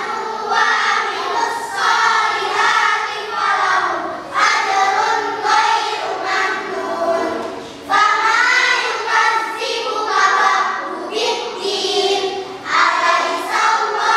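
A group of children singing together in unison, in sung phrases of a few seconds each with short breaths between them.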